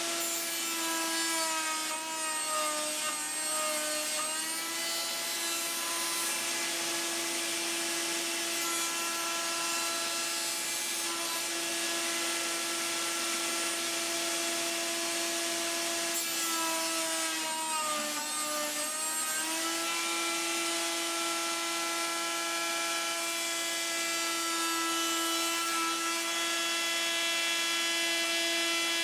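Half-inch-shank router mounted under a router table, running steadily with a whine. Twice, about a second in and again around sixteen seconds, the whine sags in pitch for a few seconds as a rail-and-stile cope bit cuts across the end of a cabinet-door rail. A shop vacuum on the same power switch runs alongside for dust collection.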